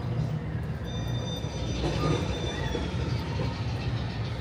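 A steady low mechanical hum, like a running engine, with a faint high steady tone from about a second in to about three seconds in and some indistinct voices.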